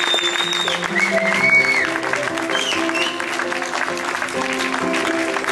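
Audience applauding over background music with held chords, with a couple of high whistles in the first two seconds.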